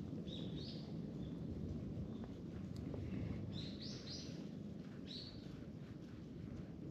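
A small bird calling in short, high, rising chirps, a few at a time with gaps between, over a steady low rumble.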